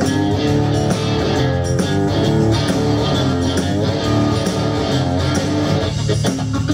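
Live blues-rock band playing, led by electric guitar over bass guitar and drum kit.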